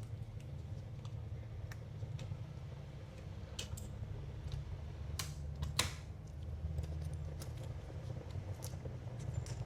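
Scattered small clicks and taps of laptop ribbon cables and connectors being handled and seated on a motherboard, with a few sharper clicks in the middle, over a steady low hum.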